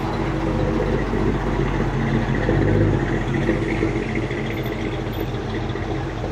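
Two customized vintage Ford sedans driving slowly past one after the other, their engines running at low speed with a steady low note. The sound is loudest near the middle as they pass close by, then eases off.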